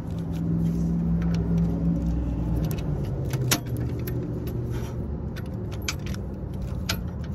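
Irregular metallic clicks and clinks of a ratchet and socket extension being handled and fitted onto a wheel-hub bolt, over a steady low motor hum that drops slightly in pitch partway through. The sharpest click comes about three and a half seconds in.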